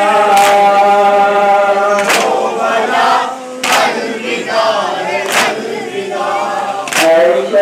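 Men chanting a Shia noha lament together, sung in long held lines, with five heavy unison chest-beating (matam) strikes about every 1.6 seconds.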